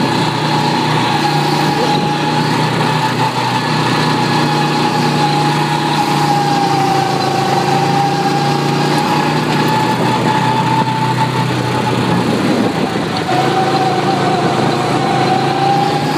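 Go-kart's small engine running steadily under way, with a high, slightly wavering whine. The whine drops away for a moment about three-quarters of the way through, then picks up again.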